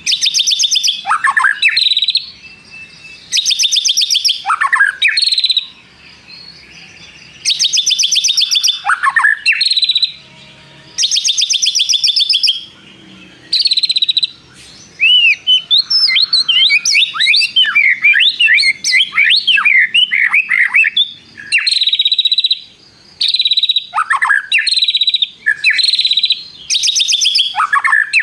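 White-rumped shama (murai batu) singing loudly. It gives long, rapid trills again and again, several ending in a quick falling note, with a run of varied quick chirps in the middle. The long 'tirrr' trills are its mimicry of a prinia (prenjak).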